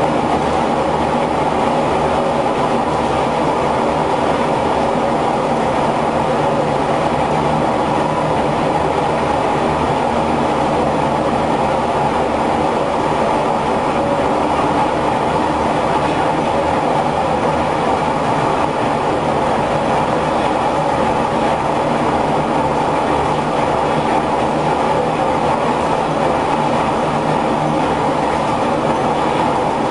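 Steam-driven textile mill machinery running steadily: a loud, continuous, even mechanical noise with no change in pace.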